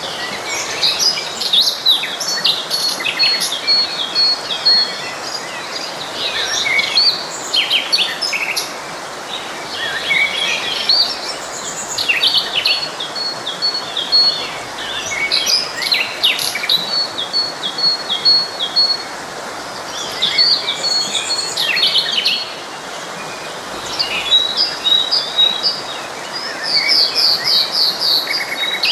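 Several songbirds singing and chirping throughout, among them trills of quickly repeated high notes, over the steady rushing of a forest stream.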